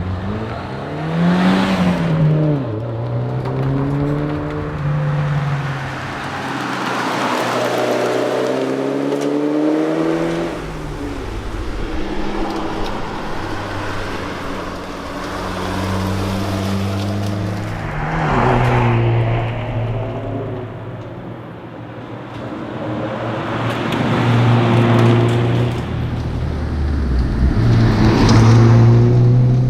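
Toyota Celica GT4's turbocharged 3S-GTE four-cylinder engine at rally pace, revving up and dropping back again and again as the car accelerates, lifts and shifts through corners.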